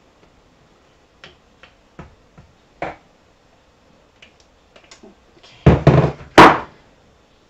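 A silicone spatula scraping and tapping against a plastic food-processor bowl and its metal blade, in scattered light clicks. About six seconds in comes a short clatter of louder knocks and a scrape as the blade is knocked clean over the crock pot.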